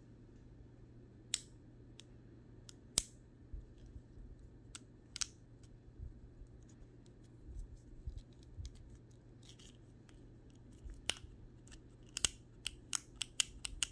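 Hard plastic clicks from a Burger King Mewtwo toy figure as its moving parts are worked by hand to try its light-up feature: a few scattered clicks, then a quick run of clicks near the end, over a low steady hum.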